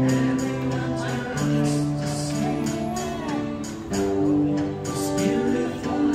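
Live band performing a song: men's voices singing together over electric keyboard and guitar, with a steady beat.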